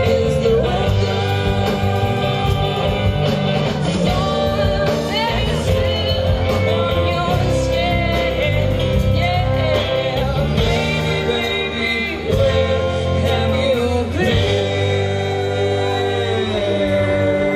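A live band playing a song, with electric guitars, fiddle, bass and drums, and singing.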